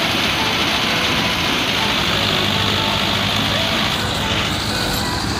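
Mahindra tractor-mounted combine harvester running: a steady engine drone under a loud, even hiss.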